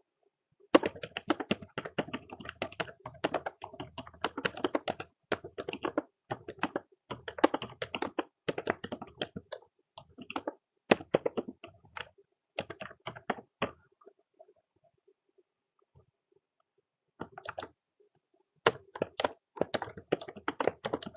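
Typing on a computer keyboard: rapid runs of key clicks that stop for about three seconds two-thirds of the way through, then start again.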